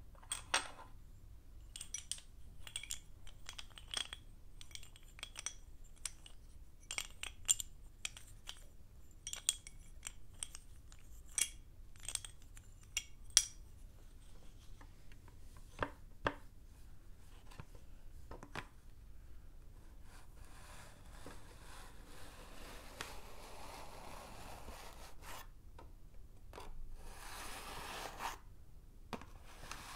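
Sticks of blackboard chalk clinking against each other: a run of sharp, bright clinks, then a few single taps, and after about twenty seconds a soft scraping and rubbing of chalk sliding over a small chalkboard.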